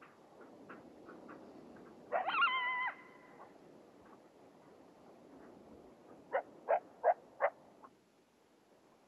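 Coyote calling: a short wavering howl about two seconds in, then four sharp barks in quick succession near the end, with a few fainter yips before.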